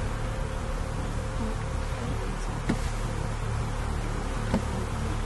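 Many honeybees flying around a freshly transferred hive, buzzing in a steady, dense drone.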